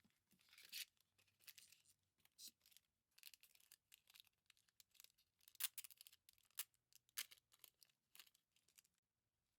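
Faint crinkling and tearing of packaging being handled and opened by hand, in irregular short bursts that stop shortly before the end.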